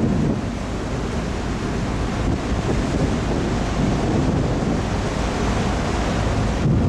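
Wind buffeting the camera microphone on the open deck of a ferry underway: a steady, dense low noise with no distinct events.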